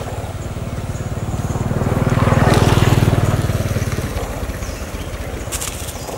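A motor vehicle's engine passing by: a steady pulsing engine sound that grows louder to a peak about halfway through, then fades away.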